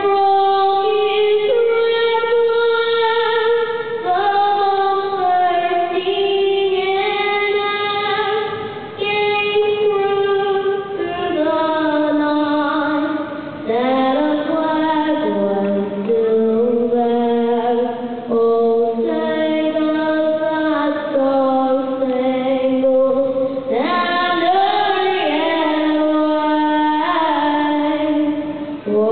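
A young girl singing the national anthem solo into a microphone, with no accompaniment, in long held notes that move from phrase to phrase.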